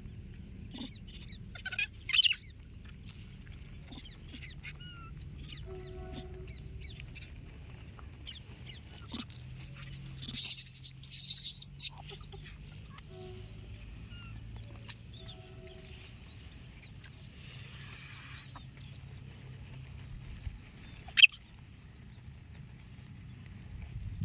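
Scattered short, high chirps over a steady low hum, with a few loud, harsh noise bursts: one about two seconds in, a longer pair around ten to twelve seconds, and a sharp one near twenty-one seconds.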